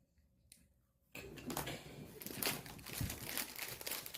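A person snoring loudly with a harsh, crackling rattle, starting suddenly about a second in after near silence.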